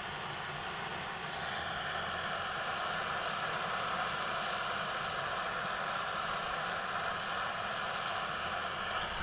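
Gas cutting torch flame hissing steadily against a steel shaft, preheating the metal before the cutting-oxygen lever is pressed.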